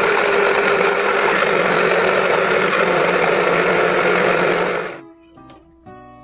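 Countertop blender motor running at full speed, blending garlic and fresh herbs into seasoning, then cutting off about five seconds in. Quiet acoustic guitar music is heard after it stops.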